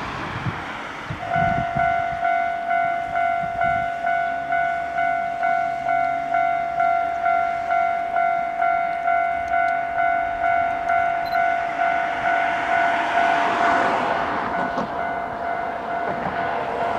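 Japanese level-crossing alarm ringing its two-tone electronic bell about twice a second, starting about a second in. In the last few seconds the running noise of the approaching Ichibata Electric Railway 2100 series train rises under it.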